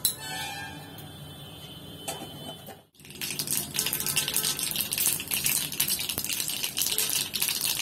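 Mustard seeds and urad dal frying in hot oil in an iron kadai, a faint sizzle at first. After a brief dropout about three seconds in, the mustard seeds crackle and pop rapidly and densely. The spluttering is the sign that the seeds have burst and the tempering is done.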